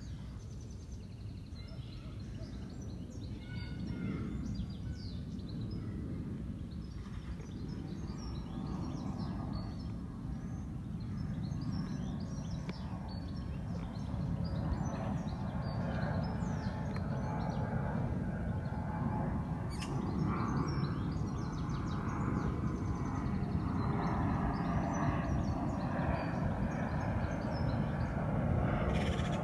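Outdoor ambience: birds chirping here and there over a steady low rumble that grows gradually louder toward the end.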